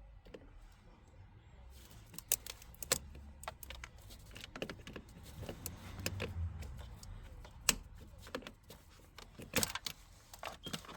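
Irregular clicks, taps and knocks of plastic clips and wiring being unclipped by hand around a hybrid car's traction battery pack.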